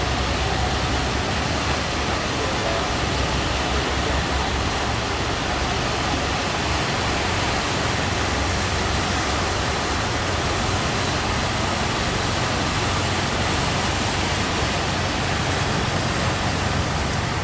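Steady, even roar of heavy surf breaking, with no separate crashes standing out.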